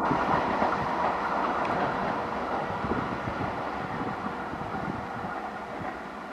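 Diesel-electric multiple unit (DEMU) passenger train running along the track, a steady mechanical drone with a constant hum and a few wheel clicks on the rails, growing steadily fainter.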